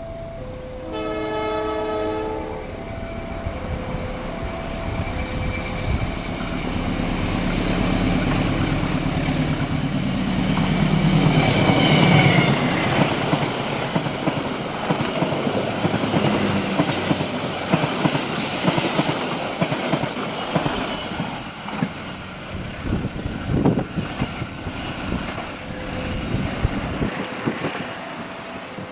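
A railway level-crossing alarm sounds two alternating tones while a train horn blows briefly about a second in. The train then passes close, loudest around the middle, with wheels clattering over rail joints and some high squealing, before fading near the end.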